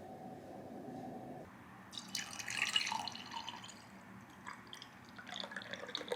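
Water dripping and splashing, with a cluster of clinks and splashes about two seconds in and a few lighter clicks near the end.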